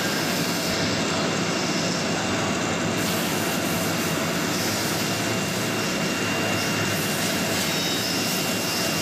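Steady whir of running machinery with a faint high steady whine.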